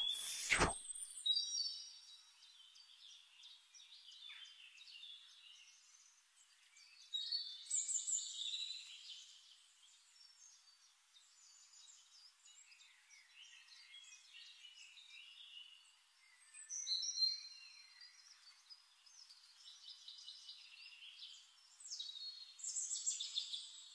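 Birds chirping and twittering in bouts of a second or two, with fainter calls between. A sharp click sounds at the very start.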